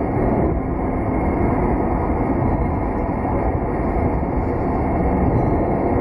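Freight train rolling through a level crossing, the Shiki 611 heavy-load wagon passing: a steady rumble of wheels on the rails.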